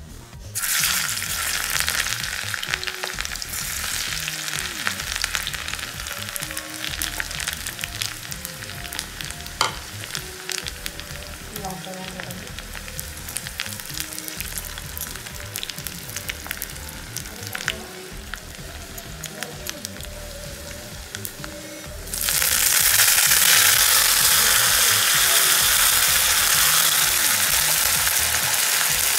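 Spices, dried red chillies and garlic sizzling and crackling in hot mustard oil in a small aluminium karahi. About 22 seconds in, the sizzle turns suddenly much louder and fuller as coriander leaves go into the hot oil.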